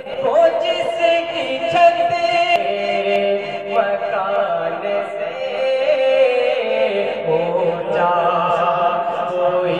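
A man chanting a devotional recitation into a microphone, solo and without instruments, in long held notes that slide and ornament from one pitch to the next.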